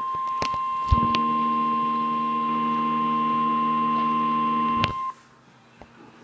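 NOAA Weather Radio 1050 Hz warning alarm tone: one loud, steady beep that signals a warning is about to be read, cutting off about five seconds in. A lower steady hum sounds under it from about a second in, with a few sharp clicks.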